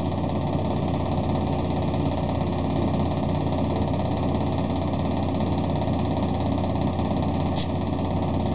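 Steady low machine hum with an even hiss of air, from the compressed-air supply inflating an 11R24.5 truck tire toward its burst pressure.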